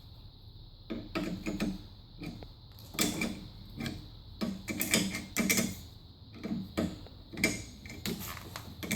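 Pedal spanner working a spin bike's pedal axle loose from the crank: a run of irregular metallic clicks and clanks, about one or two a second, as the pedal is unscrewed.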